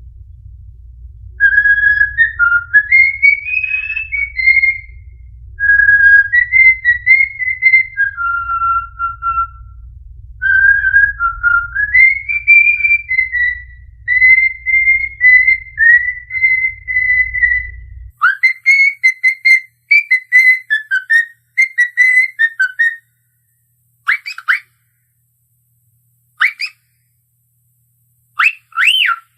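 A cockatiel whistles a tune in clear notes, with a low hum under it. About eighteen seconds in, the recording changes to shorter whistled phrases, and then to a few short rising whistles spaced a couple of seconds apart.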